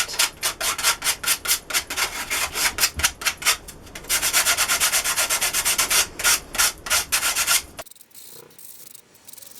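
Hand sanding of wood with rolled 100-grit sandpaper: quick back-and-forth scraping strokes, several a second, shaping the intarsia pieces and taking off tear-out fuzz. The sanding stops abruptly near the end.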